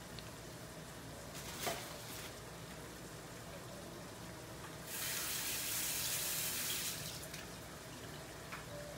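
A kitchen tap runs for about two seconds, midway through, after a single light click near the start.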